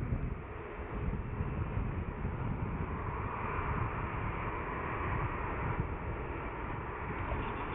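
Airbus A320neo's CFM LEAP-1A turbofans running at taxi power, a steady jet hum, mixed with wind rumbling on the microphone.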